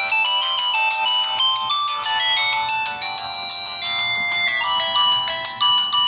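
Samsung SCH-B309 mobile phone playing one of its polyphonic ringtones through its small built-in speaker: a quick melody of short high-pitched notes with no bass.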